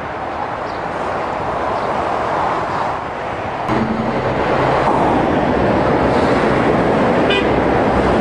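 Continuous noise of heavy traffic on a multi-lane urban motorway, a steady wash of tyres and engines passing. It steps up in loudness a little past halfway, with a low engine hum added.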